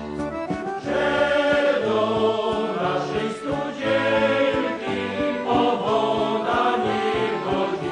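Music with a group of voices singing held notes over a regular low bass pulse.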